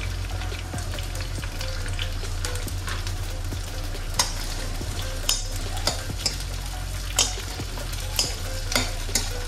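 Chopped onions sizzling in hot oil in a steel kadhai, over a steady low hum. A steel ladle stirs them, scraping and clinking against the pan, with sharp clinks coming every second or so from about four seconds in.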